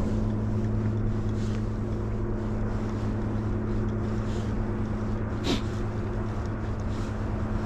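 Boat engine running steadily: a low hum with a couple of steady tones above it. A short sharp sound about five and a half seconds in.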